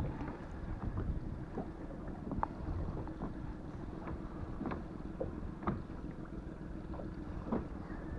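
Wind buffeting the microphone over water lapping against an inflatable boat, with scattered light taps and clicks.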